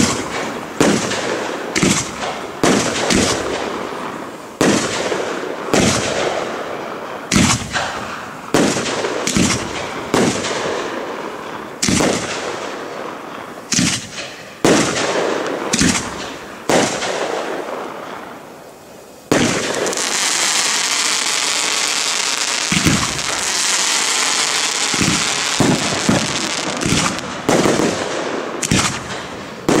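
Aerial fireworks display: shells bursting loudly one after another, each bang trailing off in a long echo. About two-thirds of the way in, a steady high hiss sets in suddenly and continues under more bangs.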